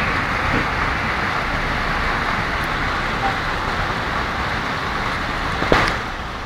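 Hail and rain falling steadily on the street, a dense, even patter, with one sharp knock near the end.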